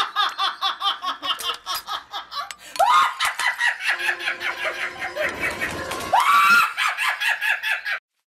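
A woman laughing hard in long, high-pitched peals of rapid ha-ha pulses. A fresh peal breaks out about three seconds in and again about six seconds in, and the laughter cuts off suddenly near the end.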